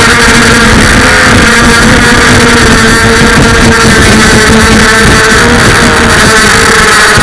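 FPV racing drone's brushless motors and propellers whining at a steady, slightly wavering pitch, with rushing wind and frame noise.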